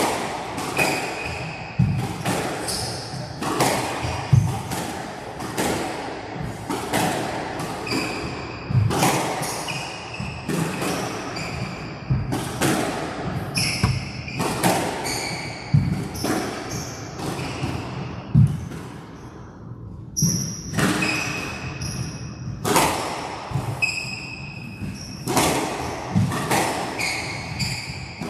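A long squash rally: the ball cracking off rackets and the court walls roughly once a second, with players' shoes squeaking on the court floor between shots and a brief lull about two-thirds of the way through.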